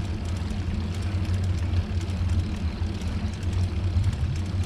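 Strong wind buffeting the microphone: a steady low rumble with a faint ticking on top, engine-like enough to be taken for a car.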